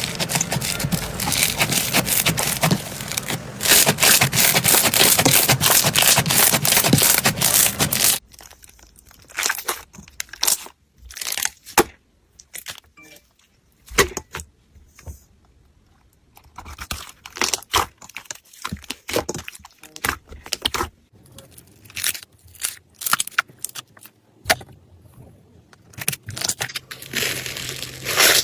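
Slime being squeezed, stretched and kneaded by hand, giving a dense crackling for the first several seconds and then scattered sticky pops and clicks.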